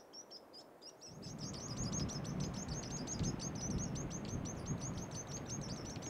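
Thorn-tailed rayadito calling: a rapid, even series of short high chipping notes, about five a second, over a faint steady background noise.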